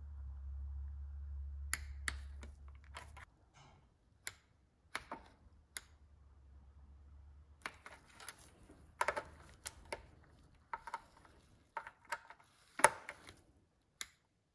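Torque wrench ratcheting and clicking as small Torx fasteners on a BMW VANOS unit are tightened to 6 foot-pounds: scattered sharp metallic clicks, coming thicker in the second half, with the loudest near the end. A low hum runs under the first three seconds.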